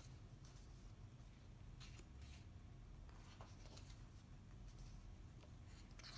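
Near silence over a low steady hum, with a few faint rustles of paper pages being handled and turned, about two seconds in and again near the end.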